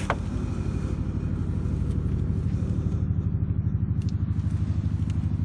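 Tanaka ECS-3309 top-handle chainsaw's two-stroke engine idling on its own, a steady low running note that pulses evenly.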